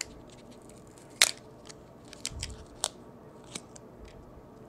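A few sharp clicks and small crackles from fingers handling an opened lithium-ion battery pack: its plastic cell holder and the fibre insulating washer over the 18650 cells. The loudest click comes a little over a second in.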